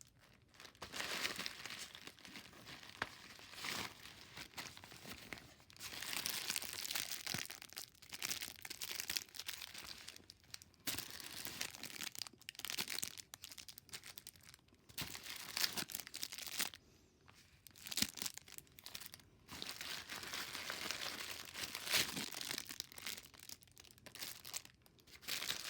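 Plastic packaging crinkling and rustling in irregular bouts as items are handled and pulled out of their plastic wrapping, with a few brief tearing sounds.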